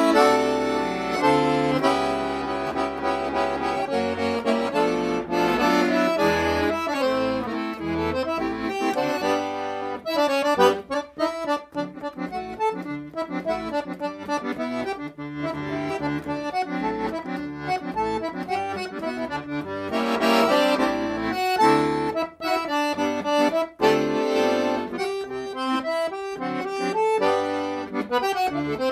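Background music with an accordion carrying the melody in sustained chords and runs.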